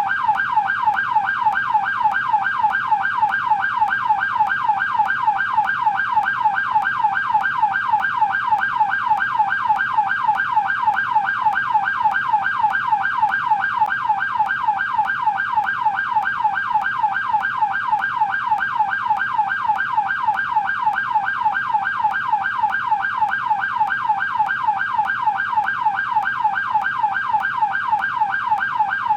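American police car's electronic siren on its yelp setting: a fast, steady warble sweeping up and down about three times a second, without a break.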